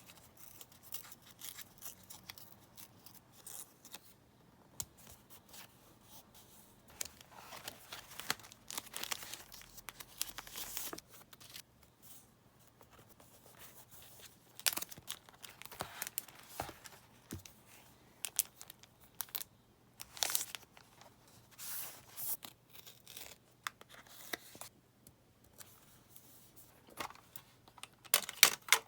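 Paper, stickers and masking tape being handled, peeled and torn by hand: a run of short, irregular rustles and rips, the loudest near the end.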